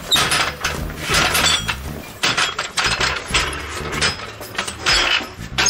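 Steel floor jack being pushed on its wheels across a concrete floor, clanking and clinking irregularly with repeated metal knocks.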